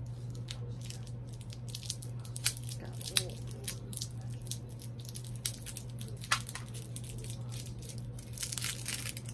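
A plastic fashion doll being handled: scattered sharp clicks and light rustling, with a denser patch of rustling near the end, over a steady low hum.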